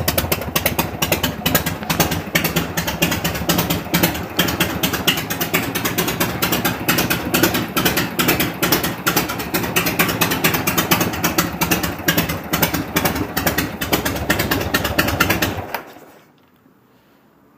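1974 Harley-Davidson FLH's 74-cubic-inch Shovelhead V-twin running with a rapid pulsing exhaust beat, then shut off about sixteen seconds in. The engine has freshly adjusted pushrods and carburettor and a repaired exhaust leak.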